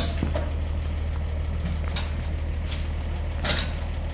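Box delivery truck's engine idling steadily, with a few short knocks and rattles from a loaded pallet jack being pulled off the liftgate.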